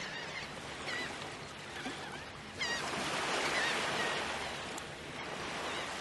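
Beach soundscape: a steady wash of surf with seagulls calling several times. The surf grows louder about two and a half seconds in, as a wave breaks.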